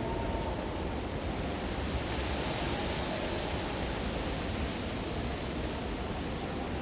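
Steady rushing wind in a mountain ambience with a low rumble underneath; a gust swells in the high end about two to three seconds in, then eases.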